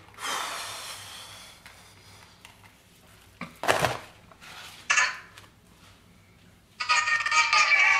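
A few sharp knocks and clattering sounds, then music and voices come in suddenly near the end as a video call connects.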